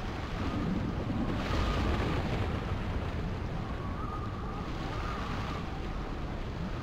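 Stormy wind and rushing sea, a steady roar that swells about one and a half seconds in and then eases. Over it runs a faint, wavering whistle of wind, which drops out during the swell and returns.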